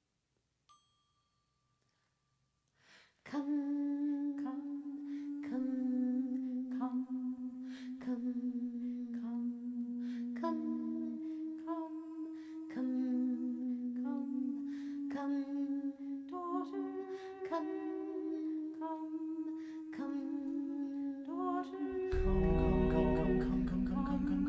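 Small vocal ensemble humming slow, sustained notes in harmony, entering after about three seconds of near silence; each new note begins with a short light attack. Near the end the sound thickens and grows louder as fuller, lower voices or instruments join.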